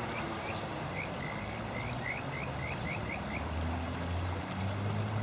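A frog calling: a quick run of short rising chirps, about four a second, over a steady rushing background; the calls stop about three and a half seconds in, as a low hum comes in.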